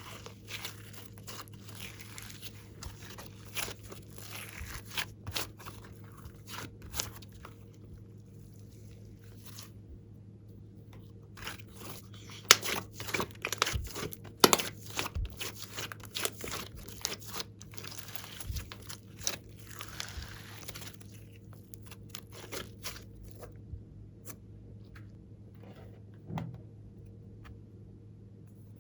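Glossy slime being mixed and kneaded by hand, making irregular sticky crackles and clicks that come thickest and loudest about halfway through. A faint steady low hum sits underneath.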